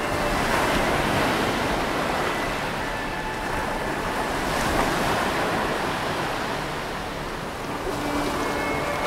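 Sea surf: waves breaking and rushing, a steady wash of noise that swells and eases in slow surges.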